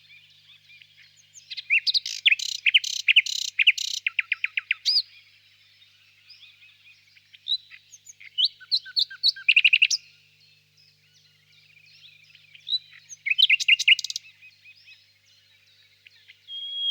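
Nightingale singing in three loud phrases of fast, repeated, ringing notes and trills, with short pauses between phrases.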